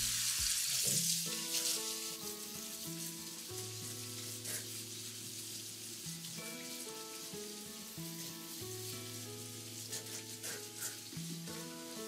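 Tap water running and splashing onto a bunch of chives being rinsed by hand over a stainless steel mesh colander, loudest in the first second or so. Light background music plays over it.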